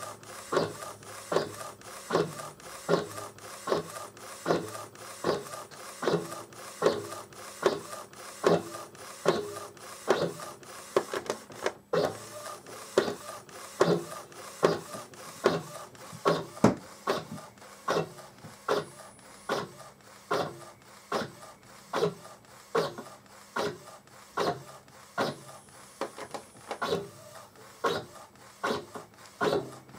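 Epson Stylus Photo R1900 inkjet printer, converted for direct-to-garment printing, printing on a T-shirt. The print-head carriage slides back and forth with a clack at each pass, at a steady rhythm of about one to two a second.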